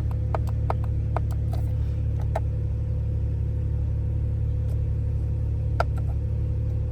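Steady low rumble of a BMW 335i's engine idling, with a faint steady hum. A scattered run of light clicks sounds in the first two and a half seconds, and a single click comes near the end.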